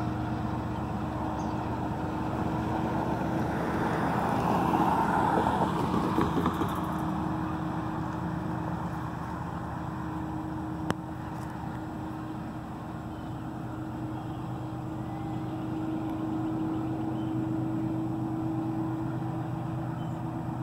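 Diesel locomotive engine running with a steady low drone, the rear unit of a train moving away along the tracks. The rumble swells and grows rougher for a few seconds about four seconds in, and a single sharp click sounds about eleven seconds in.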